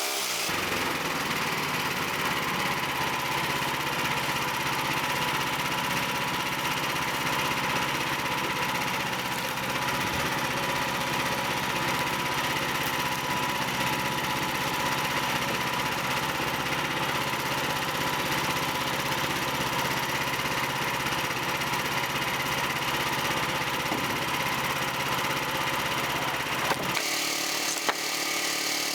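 Small gas engine of a Frontier OS31 portable band sawmill running steadily as the band blade cuts along an ash log. The sound changes abruptly near the end to a smoother, more even engine note.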